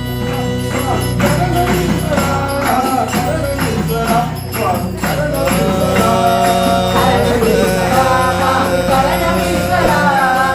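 Indian devotional music: a wavering melody over a steady drone, with jingling percussion keeping the beat.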